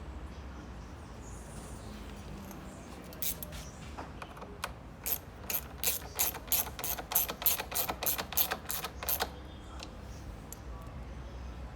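Hand ratchet clicking in a run of sharp clicks, about three a second and speeding up slightly, from about three seconds in until about nine seconds in, over a low steady hum.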